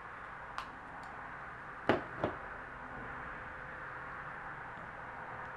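Plastic Play-Doh tub being opened by hand: three short sharp plastic clicks, a light one first and then two louder ones close together about two seconds in.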